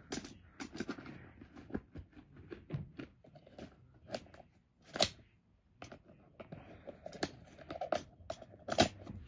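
Hands handling tools in the pockets of a PVC-coated fabric tool bag: rustling fabric with irregular clicks and knocks of tools, the sharpest knock about five seconds in and another near the end.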